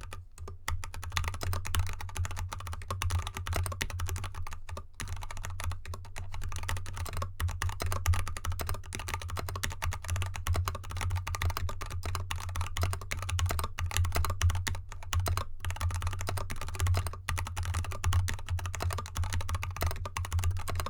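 Steady fast typing on a mechanical keyboard with unlubed Kailh Box Red Pro 35gf linear switches and XDA keycaps, in a foam-dampened anodized aluminium GK64X case set on a desk mat. There are brief pauses near the start and about five seconds in.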